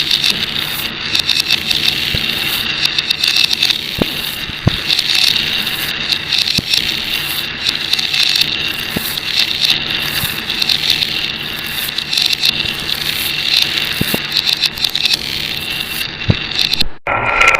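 Glass marbles rolling and clattering along a marble-run track: a continuous rattling rumble with many small clicks and a few sharper knocks, broken by a sudden cut near the end.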